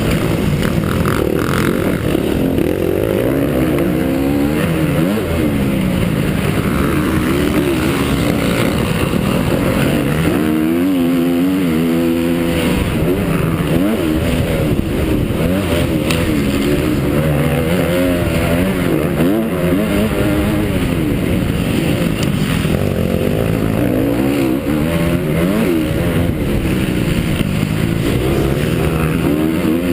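Honda CRF 250 four-stroke motocross bike's engine, heard close from an onboard camera, revving hard and rising and falling in pitch as it is worked through the gears and throttle on a race track.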